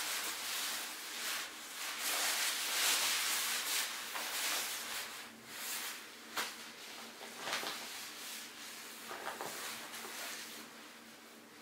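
Nylon-shelled down clothing rustling as a down jacket is pulled on and adjusted, loudest in the first few seconds, with a couple of sharper crackles midway before it settles.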